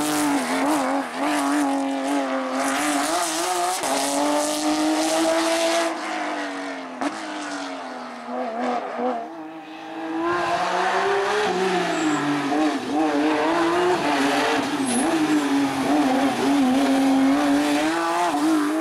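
Hillclimb race car engine at full throttle, its pitch rising and falling as it revs through the gears, with tyre squeal. The engine fades about halfway through and then comes back loud.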